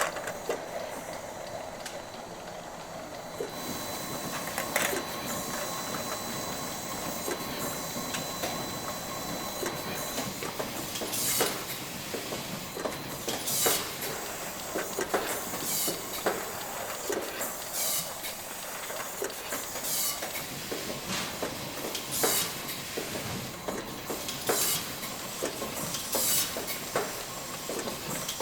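Brewery machinery running with a steady hiss and sharp clinks that come every second or two, more often in the second half, over a faint steady whine in the first part.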